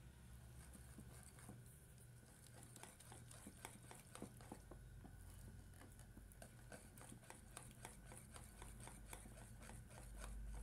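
Wire whisk beating cake batter in a bowl: faint, quick ticks of the wires against the bowl, coming thicker from about two seconds in, over a low steady hum.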